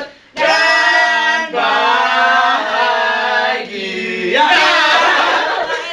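A small group of friends singing a birthday song together without accompaniment, holding long drawn-out notes.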